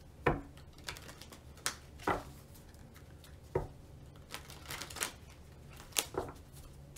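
Tarot cards being shuffled by hand: a series of crisp, irregular taps and slaps as the cards knock together.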